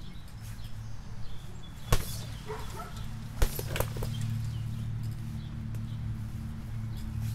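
Punches landing on a punching bag: two sharp hits about two and three and a half seconds in, followed by a couple of lighter knocks, over a steady low hum.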